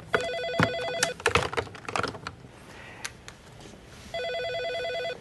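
Office desk telephone ringing twice, each ring a warbling electronic trill about a second long, with scattered clicks and clatter between the rings.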